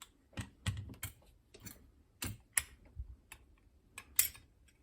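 Irregular sharp clicks and taps of a Chubb Detector lever lock being handled and opened up, with a louder cluster about four seconds in.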